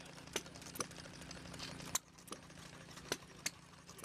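Small scale-model hit-and-miss engines running: about six sharp, irregular clicks or pops over a steady low hum.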